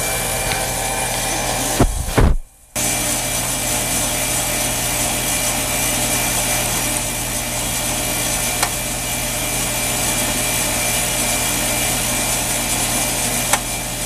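Split-system heat pump outdoor unit running close by, the compressor humming under the steady rush of the condenser fan. It is running a pump-down with the liquid-line service valve closed, so the compressor pulls the refrigerant into the outdoor unit. The sound cuts out briefly about two and a half seconds in.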